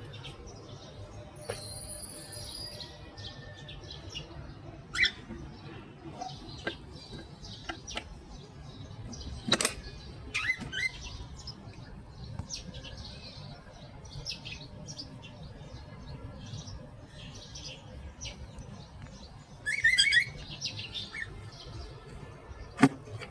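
Pet cockatiel making scattered short chirps and squeaks, with a louder run of chirps about twenty seconds in and a few sharp clicks between. A steady low hum runs underneath.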